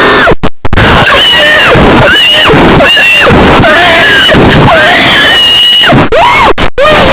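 Harsh, heavily distorted and clipped screaming-like sound at full loudness, its pitch swooping up and down about once a second over a thick noise bed, with a few brief cut-outs near the start.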